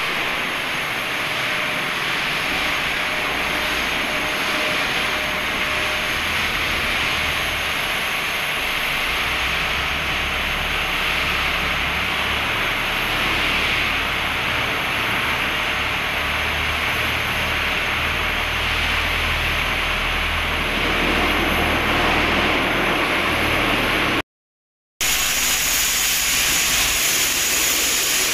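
Steady loud hiss of industrial compressed-air equipment, with a low machine rumble underneath; it breaks off briefly near the end.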